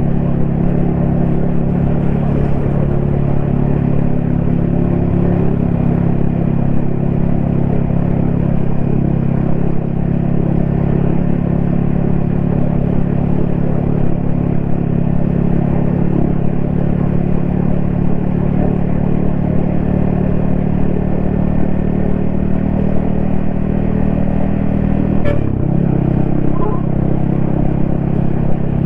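Yamaha XSR155's single-cylinder engine and exhaust running at a steady cruising pitch, heard from the rider's helmet. Near the end there is a click and the engine note drops quickly to a lower pitch.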